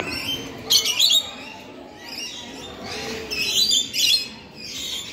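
Rainbow lorikeets squawking: several clusters of loud, high-pitched screeches, about a second in, again near three seconds and near four seconds in.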